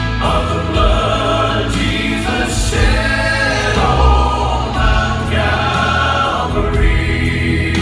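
Gospel vocal quartet singing a hymn in close harmony, the voices moving together from chord to chord over a steady low accompaniment.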